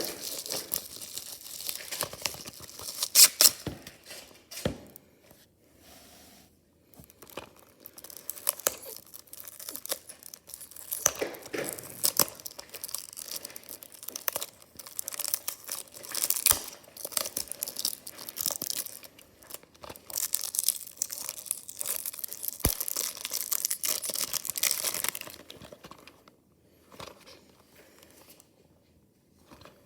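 Packaging being opened by hand: irregular tearing, crinkling and rustling, dying down to a few quieter handling noises near the end.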